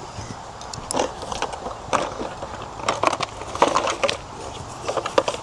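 Scattered metal clicks and knocks of hand tools being worked on a wheel hub assembly, roughly one a second, with a quick cluster just after the middle.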